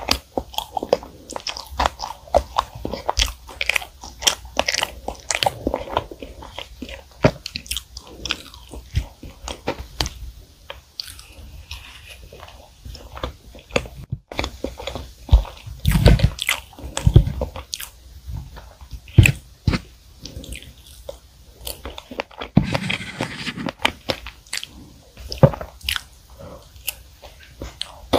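Close-miked chewing and wet mouth clicks from eating chocolate cream cake with strawberries, continuing steadily. A few louder knocks come about halfway through.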